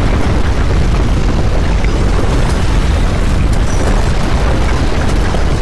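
Deep, continuous earthquake rumble, a dense low roar with no separate hits, loud and steady throughout, as the ground shakes at its strongest.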